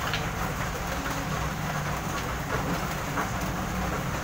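Steady low rumble and hiss of background noise, with a few faint ticks.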